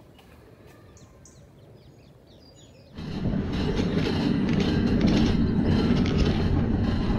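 Quiet outdoor air with a few faint high chirps, then about three seconds in a sudden switch to riding aboard an elevated amusement-park monorail: a loud, steady rumble of the car running along its track with fast rattling clicks.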